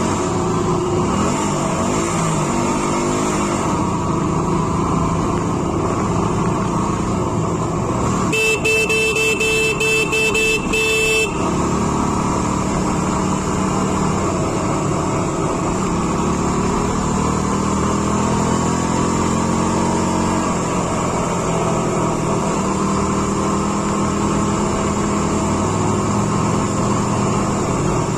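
Motorbike engine running under way, its pitch rising and falling with speed, with wind and road noise. About eight seconds in, a horn sounds in one steady blast lasting about three seconds.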